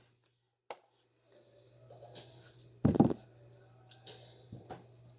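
Faint handling noises: a few clicks and one louder thump about three seconds in, over a steady low electrical hum.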